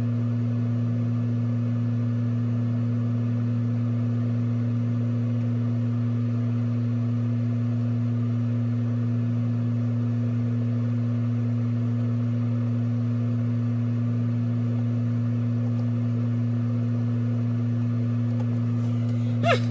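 A deep, steady hum that does not change at all, with a brief high pitched cry or voice just before the end.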